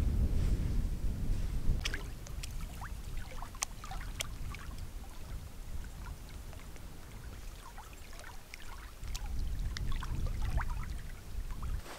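Small waves lapping at the edge of a loch, with light splashes and trickles against the shore and stones. Wind rumbles on the microphone, heaviest in the first two seconds and again briefly near the end.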